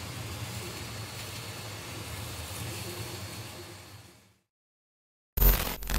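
Steady background hiss with a low hum, fading out about four seconds in. After a moment of silence, a loud, short burst of sound starts near the end.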